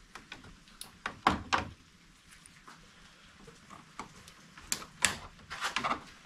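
Plastic push-pin retainer clips on a Ford Bronco's grille panel being pried out with a flathead screwdriver: scattered sharp clicks and snaps of plastic, a cluster about a second in and another near the end.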